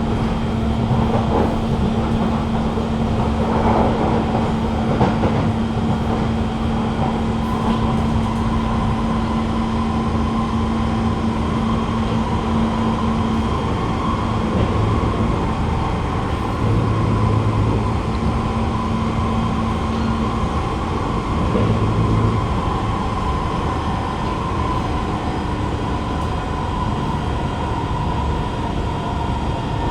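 Kawasaki Heavy Industries C151 metro train heard from inside the carriage while running at speed: a steady rumble of wheels on rail with steady humming tones from the GTO-VVVF traction equipment. A low hum fades out about halfway through, and a higher whine comes in after a few seconds and holds.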